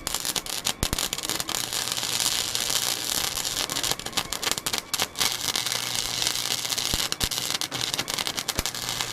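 Electric welding arc crackling and sizzling steadily as steel bracket welds are laid, with a few brief breaks in the arc.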